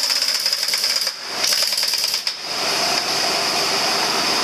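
One-inch pneumatic impact wrench hammering on a truck's wheel lug nuts in rapid bursts, with a short break about a second in. After about two and a half seconds a steadier mechanical running noise takes over.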